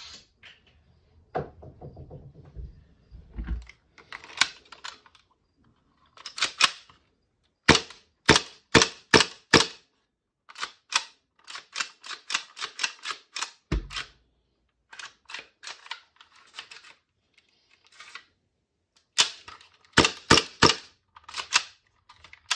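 Gas blowback airsoft Hi-Capa pistol, mounted in a carbine kit, being fired on gas to check that it cycles: repeated strings of sharp cracks, several shots a second, with short pauses between strings. A low rattle of handling comes in the first few seconds.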